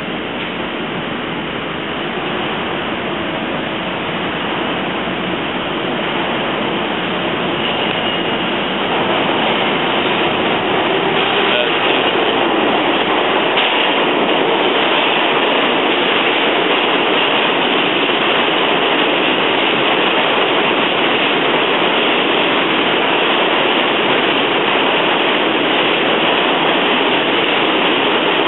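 New York City subway train running over the rails, a steady rumble and rush that grows louder about ten seconds in and stays loud.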